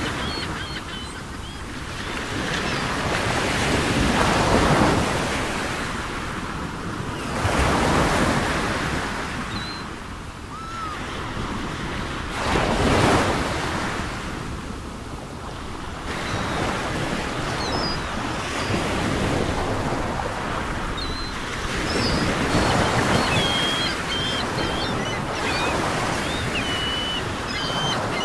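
Ocean waves washing on a shore, a steady rush that swells and falls every few seconds, with short high chirps in the last few seconds.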